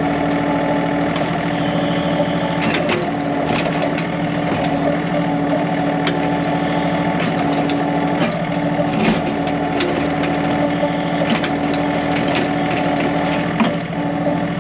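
Three-cylinder diesel engine of a John Deere 3039R compact tractor running steadily under backhoe load. Irregular sharp cracks and snaps of wood and roots come through it as the 385A backhoe works a big maple stump.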